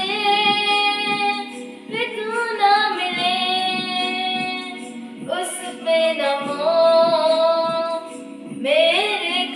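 A boy singing a Hindi film song in long, held, gliding notes over a backing track. He sings in three phrases, with short breaks about two seconds in and about five seconds in, and comes back in near the end.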